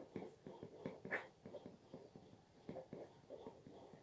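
Thick black felt-tip marker scratching on paper while writing an equation: faint, short irregular strokes.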